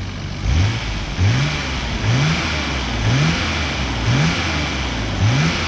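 Healthy Nissan RB26 twin-turbo straight-six idling and blipped by hand at the throttle six times, about once a second. Each rev rises quickly and falls back to idle. The engine follows the throttle cleanly with no clatter, the sound of a sound engine.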